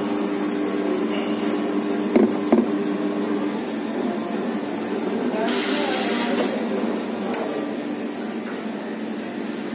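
Commercial espresso machine steaming milk in a stainless pitcher: a steady steam hiss over the machine's pump hum. A couple of seconds in come two sharp knocks as the pitcher comes off the wand, and about halfway there is a brief, loud hiss of steam as the wand is purged while being wiped with a cloth.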